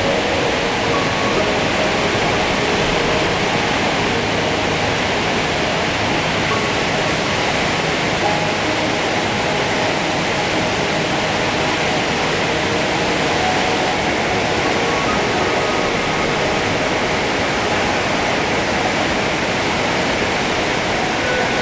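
Large waterfall running in heavy spate after a downpour: a steady, unbroken roar of falling water.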